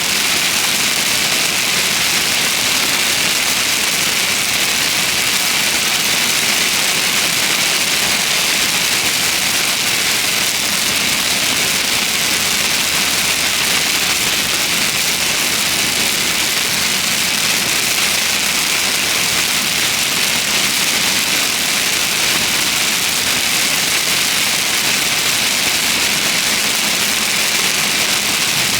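Heavy thunderstorm rain on a vehicle: a steady, loud hiss.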